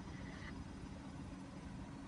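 Steady low background rumble with no distinct event, and a faint high tone in the first half second.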